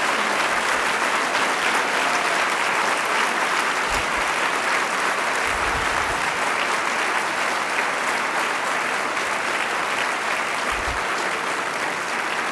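Audience applauding, steady and dense, easing slightly near the end.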